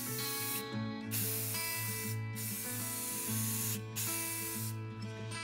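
Aerosol spray paint can, warmed in hot water beforehand, spraying yellow paint onto a metal bicycle chain guard. The hiss comes in a few long bursts of about a second each, with short breaks between.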